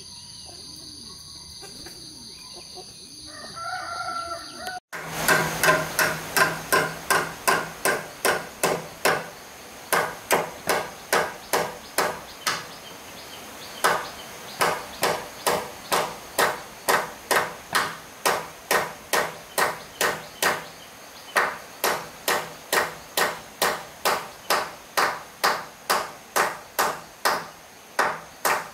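A rooster crows once over a steady high insect drone. After that a hammer strikes timber over and over, about two blows a second, in runs broken by short pauses.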